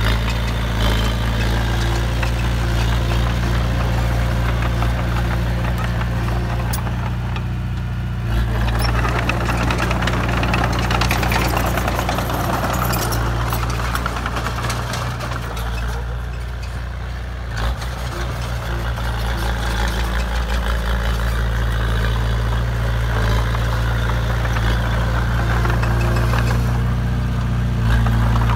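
Komatsu D20A crawler bulldozer's diesel engine running steadily with a low, even hum. A rougher, noisier rattle joins in from about eight seconds in and eases off near the end.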